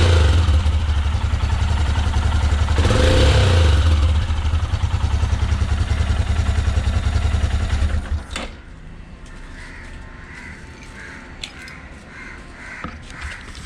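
Royal Enfield Himalayan single-cylinder engine running with an even exhaust note, blipped briefly about three seconds in, then cut off about eight seconds in. There is no ticking, leaking or backfiring: the new exhaust manifold gasket is sealing.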